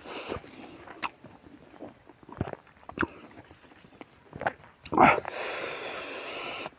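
Close-up eating sounds of a person eating rice by hand: scattered soft clicks and mouth smacks. About five seconds in comes a louder, hissy sound that lasts about a second and a half.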